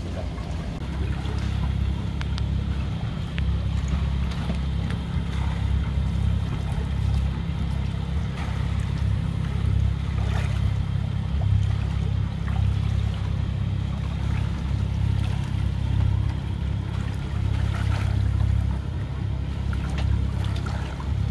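A sailing yacht's auxiliary engine runs with a steady low drone as the boat motors along with its sails not yet raised.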